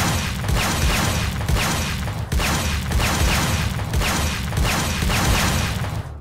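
Loud, driving background music with a heavy beat about twice a second, stopping abruptly near the end.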